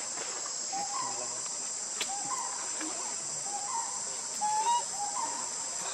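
Steady high-pitched insect chorus of crickets or cicadas, with short repeated calls, roughly two a second, from a bird.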